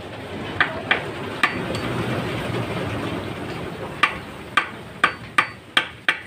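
Sharp metal-on-metal knocks as the lock nut on an R175 diesel engine's camshaft gear is worked loose, the gear held still with a screwdriver: three in the first second and a half, then six about half a second apart near the end.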